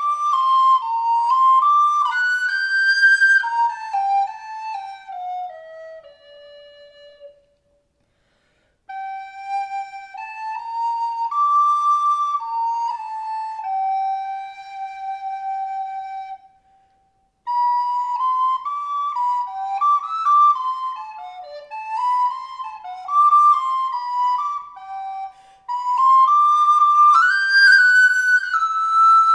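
Wooden recorder playing a slow, solo improvised melody on Christmas carols, in phrases with two short breaks, about a quarter of the way in and just past halfway.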